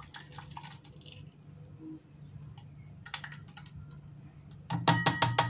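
Faint straining and handling noise, then near the end a quick run of about five sharp metallic clinks with a ringing tone: a plastic strainer knocked against the rim of a stainless steel bowl.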